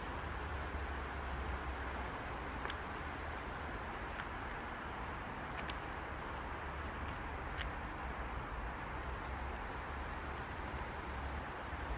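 Steady city street background noise with a low rumble, and a few faint clicks scattered through it.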